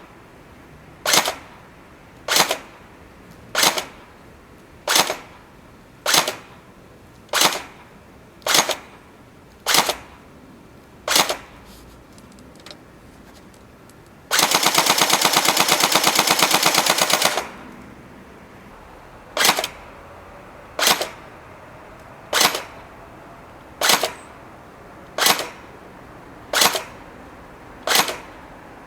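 Tokyo Marui AA-12 electric airsoft shotgun firing single shots about once every second and a quarter, then a full-auto burst of about three seconds about halfway through, then single shots again at a slightly slower pace.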